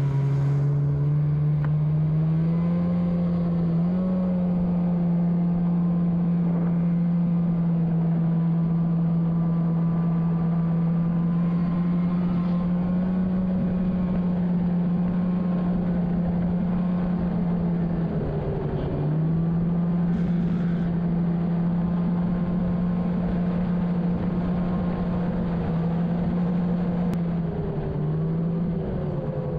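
Snowmobile engine running at a steady cruising pitch under throttle. The pitch dips briefly about two thirds of the way through and again near the end as the throttle eases, then climbs back.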